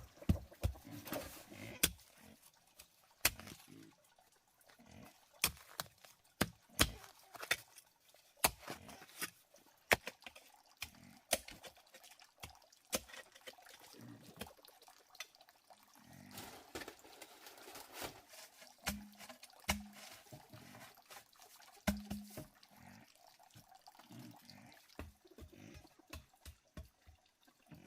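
Water splashing and dripping: a string of irregular sharp splashes and knocks, some with a low thud.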